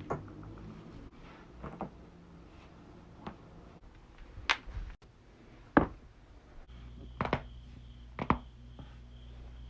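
Human joints cracking: a string of sharp pops spaced a second or so apart, a few of them doubled, the loudest about six seconds in.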